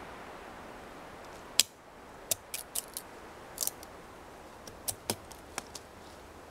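Fallkniven A1 knife blade digging and prying into a dry, weathered log: a string of short, sharp cracks and snaps of splintering wood, the loudest about a second and a half in.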